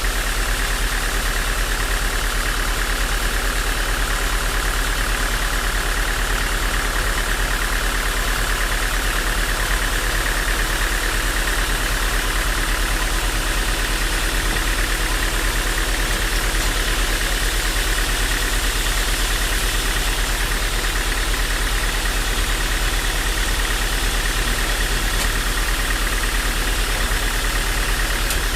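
Band sawmill machinery running steadily, a constant machine hum with a steady higher whirr and no breaks.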